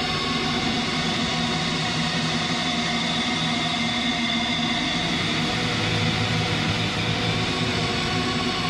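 Steady, dense drone of sustained tones and rumbling noise with no beat, from an ambient background music track.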